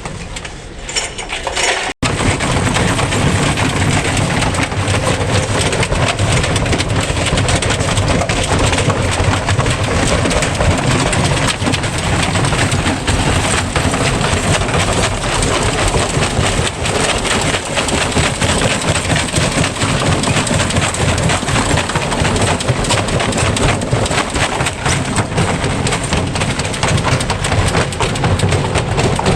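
Electrolux front-load washing machine running with a brick in the drum: continuous loud banging and rattling as the brick pounds the drum and the machine shakes. It is quieter for the first couple of seconds, then after an abrupt break it runs steadily loud.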